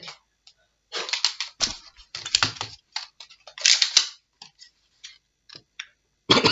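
Plastic clicking and rattling as a Nerf foam-dart blaster is handled, with a run of quick clicks and a sharp click about four seconds in.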